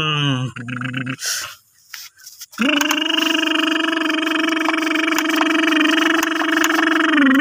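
A person's voice making engine noises for a toy truck: a wobbling hum that slides down in pitch, a brief break, then a long steady held drone from about two and a half seconds in.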